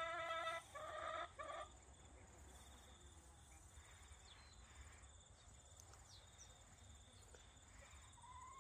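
A rooster crowing: a held call followed by two short syllables, ending about a second and a half in. After that only faint scraping of a knife being drawn along a sharpening board.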